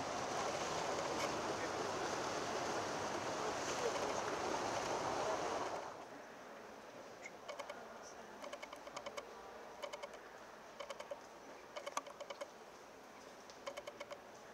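Steady rushing outdoor noise that cuts off suddenly about six seconds in, giving way to the quiet of a church interior with scattered clusters of light clicks and taps.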